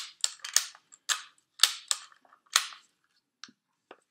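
G&G G36C airsoft electric rifle, powered by a 7.4 V battery, firing a quick string of about ten shots with uneven gaps over the first two and a half seconds, then two faint clicks near the end. The shots sound a little weak ("un poquito flojo") on this battery.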